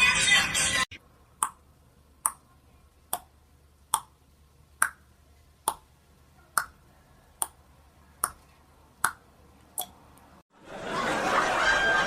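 A short run of sharp clicks at a steady beat, a little faster than one a second, about eleven in all. Music stops just before them, and chatter starts near the end.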